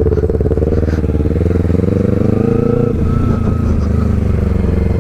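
Motorcycle engine running steadily at low revs, its pitch rising a little and falling back between about two and three seconds in.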